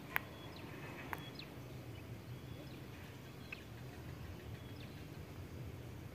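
Quiet outdoor ambience: faint bird chirps over a low, steady background hum, with a couple of sharp clicks in the first second or so.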